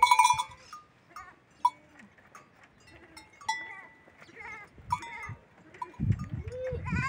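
Goat kids bleating: a string of short, high calls, the loudest one right at the start.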